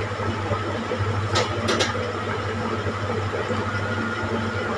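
Steady electric hum of a running kitchen appliance, with a few short sharp clicks about a second and a half in.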